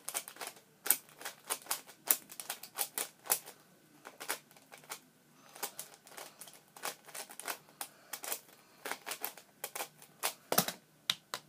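A LanLan 4x4 speed cube being turned quickly by hand: rapid, irregular plastic clicks of the turning layers, in quick runs with short pauses. A louder knock comes near the end.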